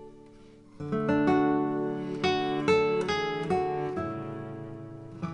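Background music with plucked strings; after a short quiet stretch, the notes pick up again about a second in.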